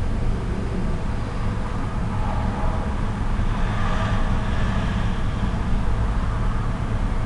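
Steady low rumble and hiss of background noise, swelling slightly in the middle.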